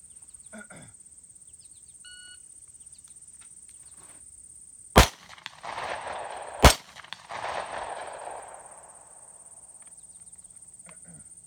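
A shot timer gives one short start beep, and about three seconds later a Smith & Wesson M&P9 Shield 9mm pistol fires two shots about 1.7 seconds apart. Each shot trails off over a second or so.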